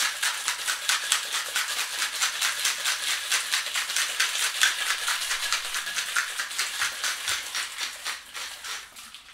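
Ice rattling inside a stainless steel cocktail shaker shaken hard by hand, about six strokes a second, fading out just before the end.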